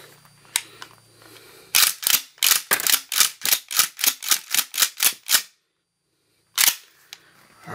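Mossberg 590 Shockwave 12-gauge pump-action shotgun being racked rapidly, the slide clacking back and forth in a fast run of about fourteen sharp clacks, then a single clack a second later. The action is cycling loaded buckshot shells through to test a newly fitted cartridge stop and interrupter, and it feeds without a hitch.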